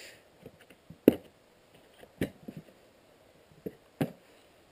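Snap latches of a plastic hard case clicking open and the lid being lifted: four sharp clicks spread over a few seconds, with a few softer knocks between them.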